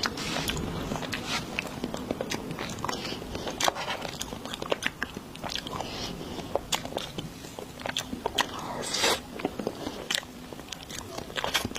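Close-miked eating of desserts: repeated bites and chewing, with many sharp, irregular crunches and crackles.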